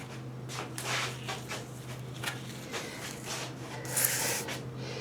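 Irregular rubbing and scraping strokes, short and uneven, the longest about four seconds in, over a steady low hum.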